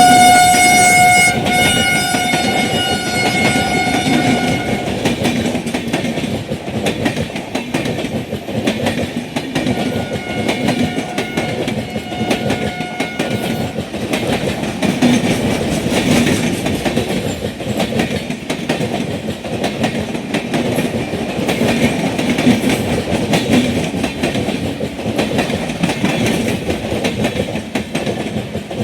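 Passenger train running on the rails, its locomotive horn sounding loudly at the start and fading out within a few seconds. The coach wheels then clatter steadily over rail joints with a continuous rumble.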